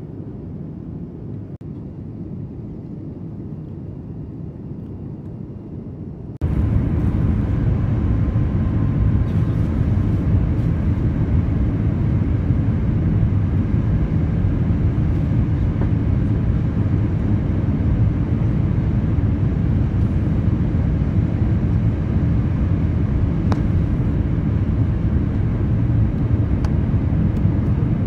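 Airbus A350 cabin noise heard at a window seat beside its Rolls-Royce Trent XWB engine: a steady, deep rumble of engine and airflow. About six seconds in, it cuts abruptly to a louder, fuller rumble from a different stretch of flight.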